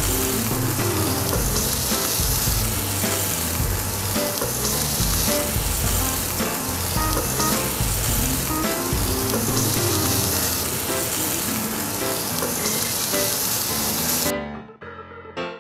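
Hamburg steak patties sizzling steadily as they fry in a pan, over background music. The sizzle cuts off suddenly near the end.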